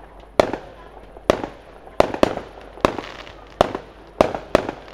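Aerial firework shells bursting in a rapid series of sharp bangs, about nine in five seconds, each trailing off in a short echo.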